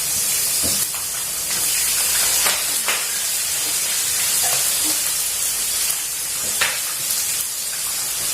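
Fish frying in hot oil: a steady sizzle with occasional sharp pops of spattering oil.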